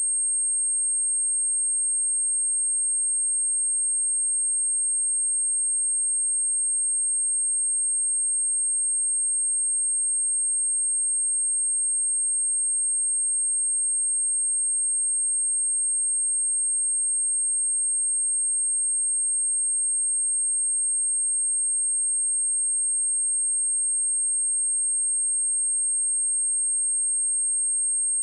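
A steady, high-pitched pure sine-wave test tone at 8508 Hz, held at one constant pitch and level: a speaker test and speaker-cleaning tone.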